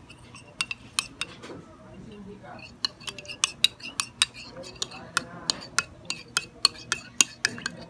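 Metal spoon clinking against the sides of a ceramic mug while stirring a thin starch-and-water mixture, a few scattered clinks at first, then a quicker run of about three to four clinks a second from about halfway through.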